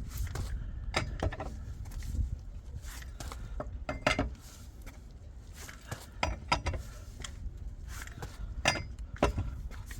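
Metal tools and parts clinking and knocking at irregular intervals, some with a brief ring, over a low steady rumble.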